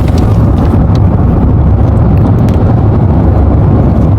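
Loud, steady low rumble of a moving vehicle, picked up on a phone's microphone.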